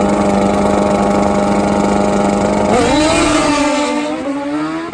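Suzuki Hayabusa drag bike's inline-four engine held at steady high revs on the start line, then launching about three seconds in: the pitch rises as it accelerates away down the strip and the sound fades.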